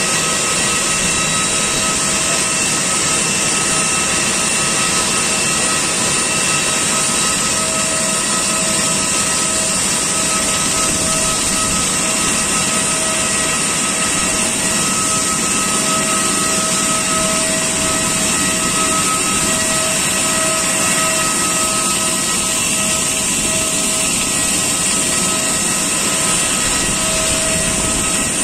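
Loud, steady aircraft turbine noise on an airport apron: a held whine with several steady tones over a strong rushing hiss, with no change in pitch or level.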